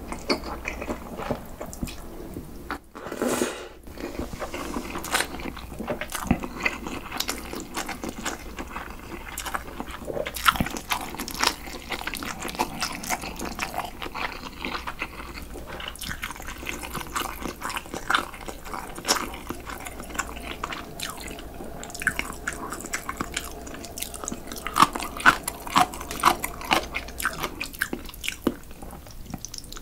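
Close-miked eating sounds: cold mul-naengmyeon noodles slurped from their broth and chewed, with many small wet clicks and smacks and drips of broth.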